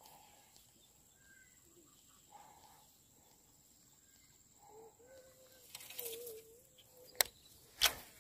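Faint bird calls repeating every couple of seconds, with a longer wavering call about five seconds in. Near the end come two sharp clicks from the baitcasting rod and reel being handled.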